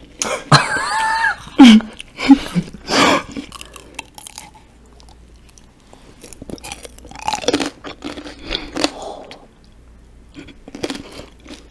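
Close-miked crunching and chewing of a tanghulu skewer: two loud sharp cracks about two seconds in as the hard sugar shell breaks, then quieter crunchy chewing later on. A short vocal sound comes just before the first bite.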